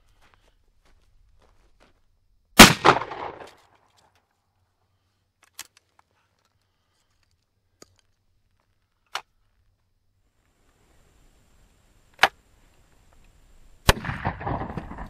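Stoeger double-barrel 12-gauge coach gun fired once, a loud blast about two and a half seconds in with a short echo after it, followed by a few light clicks. Near the end there is a sharp crack, then a scattering rattle as a target is blown apart.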